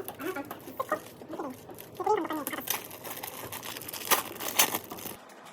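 Indistinct background voices mixed with sharp clicks and handling noises, the loudest two clicks about four seconds in, half a second apart; the sound cuts off abruptly near the end to a quieter room tone.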